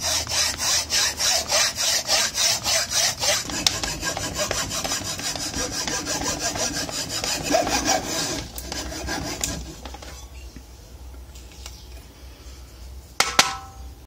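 Hand hacksaw cutting through a small block of pine clamped in a vise, in fast, even back-and-forth strokes. The strokes ease off after about eight seconds as the cut finishes. A couple of sharp knocks come near the end.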